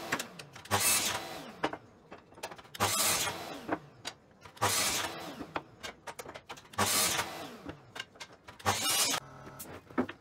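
DeWalt sliding mitre saw crosscutting hardwood flooring strips: five short cuts about two seconds apart, and after each one the motor's whine falls in pitch as the blade spins down.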